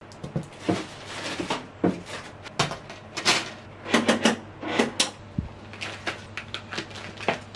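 Objects being set down and handled on a glass desk top: a quick series of knocks and clatters with rustling of a plastic bag and a coil of steel wire, over a low steady hum.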